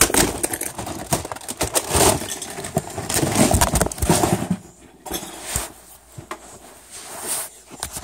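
Handling noise: a dense run of knocks, scrapes and rubbing as the recording device is jostled and bumped, thinning out about five seconds in, with a brief burst of clatter near the end.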